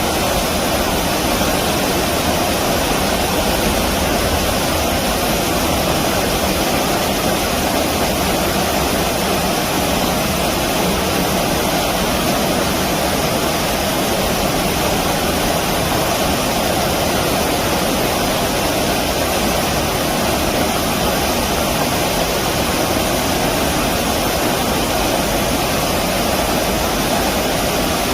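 Steady, unbroken rush of flowing stream water.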